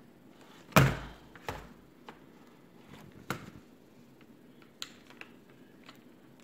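Handling noise from a small laptop and a charger plug being moved about on a table and tried at the port, which the plug is too small for: a heavy thunk about a second in, then several lighter knocks and clicks.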